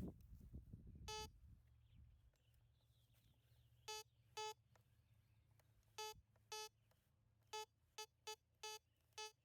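Handheld metal detector giving short beeps of one steady pitch, about ten in all at irregular intervals, as it signals a target under the coil.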